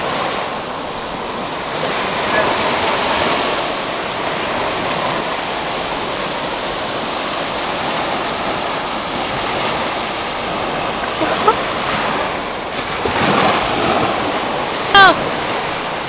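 Ocean surf washing onto a sandy beach, a steady rush of breaking waves. A short, high, falling cry cuts in about a second before the end.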